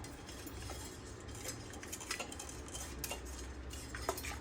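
Light, irregular metallic clicks and clinks as a long wire-handled brush is pushed through a brass trumpet's tubing, clearing out the last Cerrobend residue with hot water.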